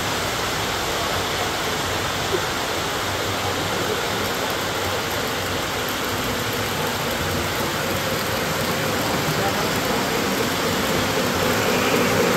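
Three-rail O gauge model trains running on a layout's metal track, a steady noise that grows louder near the end as a train comes close.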